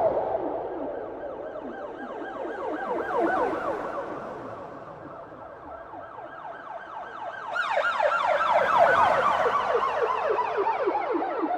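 Police car siren sounding in rapid, repeated falling sweeps, several a second. It swells and fades, then turns louder and brighter about two-thirds of the way through.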